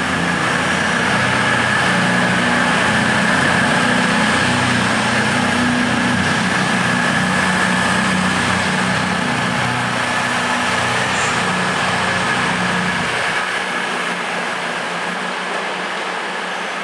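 CrossCountry Class 170 Turbostar diesel multiple unit's underfloor diesel engines running as the train moves through the station, with a steady whine over the engine note. The engine note drops away about three seconds before the end.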